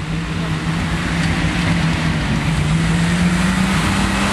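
Off-road 4x4's engine running hard at high revs, its note holding steady and rising slightly toward the end, over a constant rushing noise.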